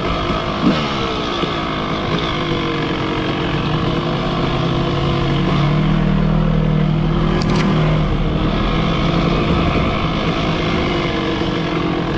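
Two-stroke dirt bike engine running, its revs dropping just after the start and then holding fairly steady, with a deeper tone for a few seconds in the middle.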